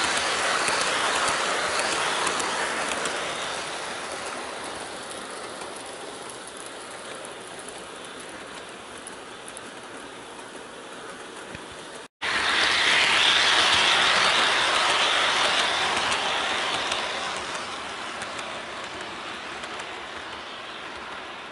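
Electric model trains running on sectional track, a steady rolling, whirring noise of wheels and motor. It is loudest as a train passes close by and fades as the train moves away. This happens twice, with a brief break in the sound about twelve seconds in.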